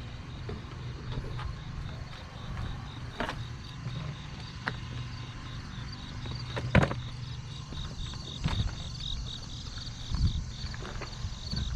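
Insects chirping in a rapid, even rhythm over a steady low rumble, with a few sharp knocks and clicks from things being handled; the loudest knock comes about seven seconds in.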